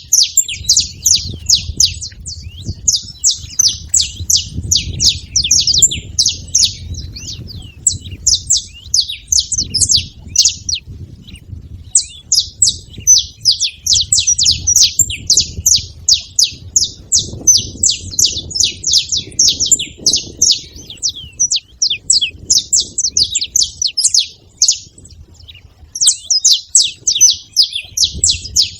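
Saffron finch singing: long runs of rapid, sharp high chips that break off briefly twice, over a faint low rumble.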